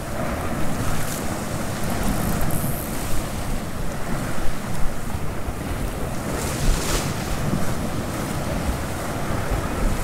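Sea swell washing against shoreline rocks, with wind buffeting the microphone.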